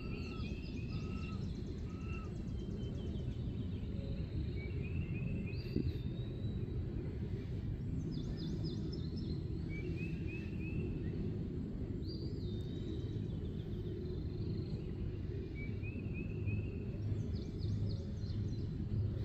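Outdoor background of a steady low rumble, with birds singing short phrases of chirps and quick trills that repeat every few seconds.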